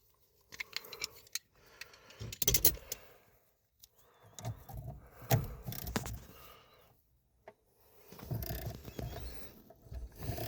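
Socket wrench and hand tools clinking and rattling on a steering wheel puller, in several short spells with pauses between.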